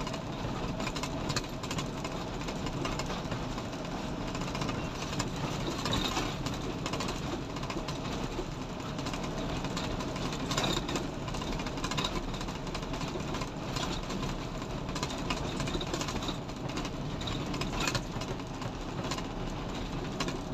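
Cargo truck driving at a steady speed, its engine running evenly with tyre and road noise, heard from inside the cab.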